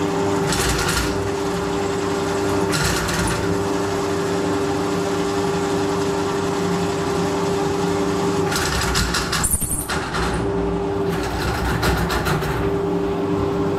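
Electric drain-cleaning spiral machine running with a steady motor hum. The spinning spiral cable rattles and clatters in several bursts as it works into a blocked drain pipe.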